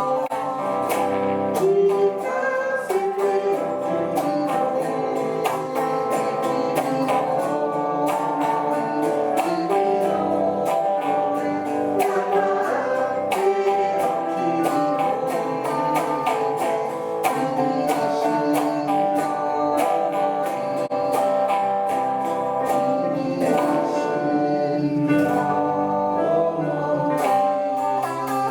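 A rock band's song playing: guitar strumming with singing.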